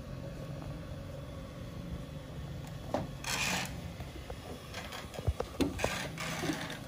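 A steady low hum with scattered small clicks and handling noise, and a short rustling hiss about three seconds in.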